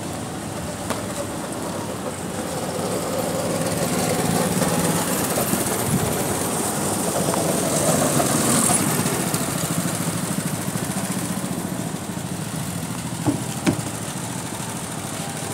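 Go-kart engines running: the sound swells as a kart comes near and passes about halfway through, then settles to a lower steady hum. Two sharp knocks come near the end.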